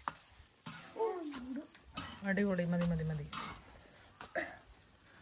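Metal tongs click against the grill grate as flatbreads are turned on a charcoal barbecue, over a faint sizzle. The loudest sounds are wordless voice sounds: a falling one about a second in and a longer, lower one about two seconds in.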